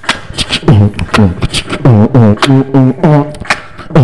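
A man beatboxing a dance beat into a microphone: deep falling bass booms from the voice, about two a second, alternating with sharp hissing hi-hat-like clicks.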